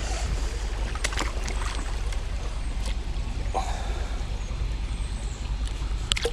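Small creek water running steadily, with a low rumble underneath and a few short sharp clicks, about a second in and near the end.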